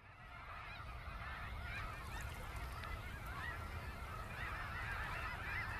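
A flock of geese honking on the water: many short calls overlap into a busy chorus that fades in over the first second.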